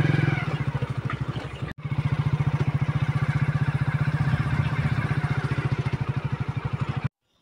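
Motorcycle engine running steadily while riding, its exhaust pulsing evenly. The sound drops out for an instant about two seconds in and cuts off suddenly near the end.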